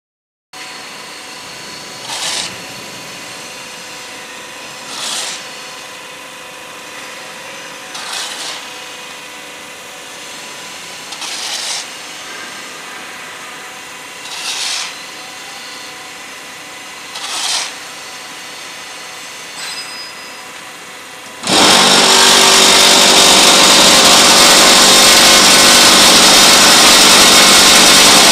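A steel shovel scraping and scooping damp concrete mix, one scrape about every three seconds. About two-thirds of the way through, a much louder steady machine noise starts suddenly: the small concrete block machine's electric vibrator motor running.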